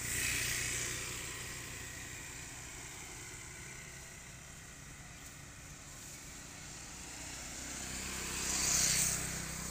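Passing road traffic: a steady low engine hum, with a vehicle hissing past just after the start and a louder one going by near the end.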